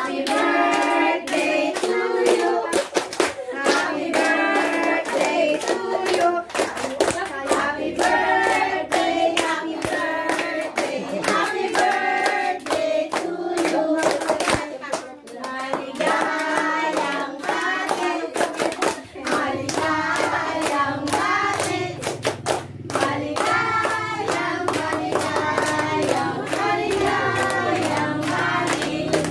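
A group of adults and children singing a birthday song together while clapping their hands along to it.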